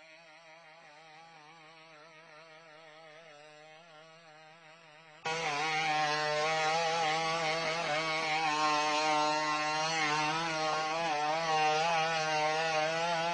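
BigDog quadruped robot's small two-stroke engine, which drives its hydraulic pump, running with a buzzing, chainsaw-like drone whose pitch wavers with each stride as the legs load it. The drone gets much louder about five seconds in.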